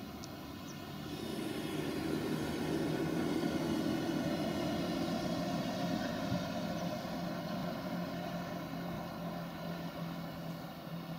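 Holmer Terra Variant 600 ECO self-propelled slurry tanker's diesel engine running steadily as the machine drives past, its slurry incorporator working the soil. The drone grows louder about a second and a half in and eases off a little in the second half.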